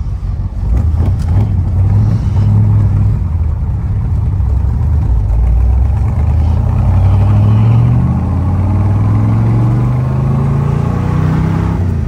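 1965 Corvette's solid-lifter 327 V8 with side pipes running under way, heard from inside the cabin. The engine pitch climbs as the car accelerates, dips about eight seconds in, then climbs again.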